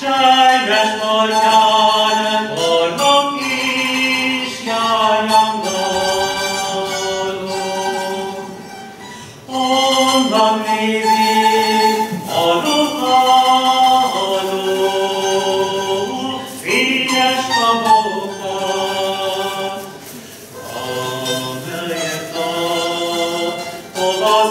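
A Hungarian citera (fretted zither) ensemble playing a folk tune while the players sing it together, in phrases with short breaks between them.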